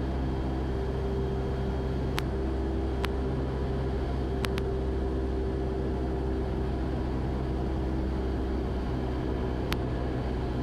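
Cessna 172's piston engine and propeller droning steadily inside the cabin, with a few faint sharp clicks scattered through it.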